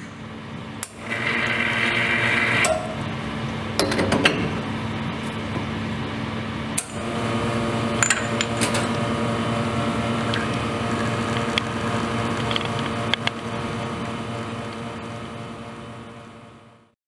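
CIME CO-05 espresso machine brewing. Clinks and knocks of the portafilter and glass shot glasses come first, with a short rushing sound about a second in. From about seven seconds in, the machine's pump hums steadily while espresso runs into the glasses.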